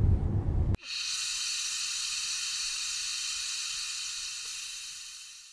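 Low rumble inside a Chevrolet Camaro chase car cuts off under a second in. It gives way to a steady high hiss of breathing gas flowing through the supply hose into a full-pressure flight suit's helmet, which fades out near the end.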